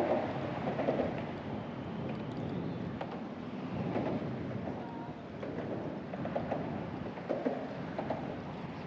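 Wind buffeting the microphone over open, choppy sea water, a steady rushing noise, with faint muffled voices now and then.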